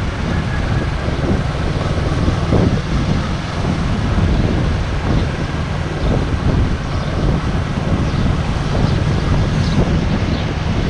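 Wind buffeting the camera microphone on a moving motorcycle, a steady low rumble that covers the bike's engine and tyre noise underneath.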